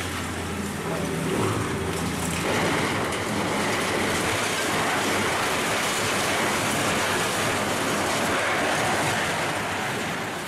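Demolition excavators at work on a reinforced-concrete building: a diesel engine hum under a steady rush of crumbling, falling concrete debris. The rush grows denser about two and a half seconds in.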